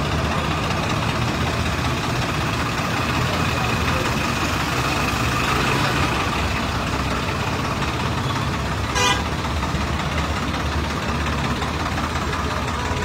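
Swaraj 855 FE tractor's three-cylinder diesel engine running steadily as it drives slowly, with a single sharp click about nine seconds in.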